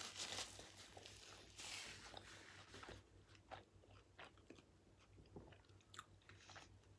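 Faint close-up chewing of a burger with pickles: soft crunching for the first few seconds, then scattered small wet mouth clicks.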